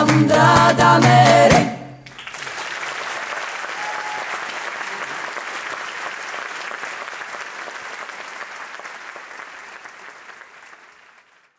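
Music stops abruptly about two seconds in, and audience applause follows, fading away gradually toward the end.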